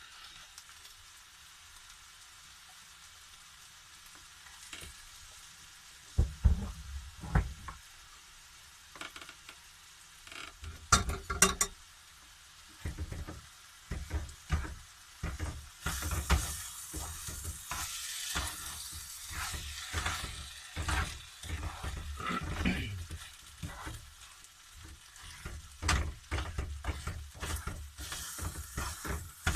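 Fried rice with mushrooms sizzling in a frying pan on a gas hob while a spatula stirs it. About six seconds in, repeated knocks and scrapes of the spatula against the pan begin, and about halfway through the sizzle grows louder.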